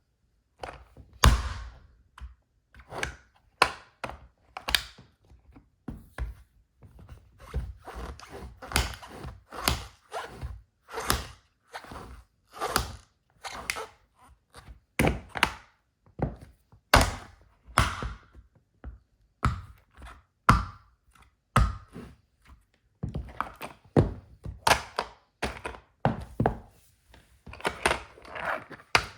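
Wedge heels stomping on a plastic toy car: repeated sharp thunks at irregular intervals, roughly one or two a second, some drawn out into short crunching noises.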